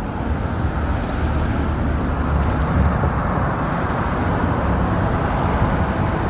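Road traffic passing: a steady rush of car engines and tyres, swelling slightly in the middle.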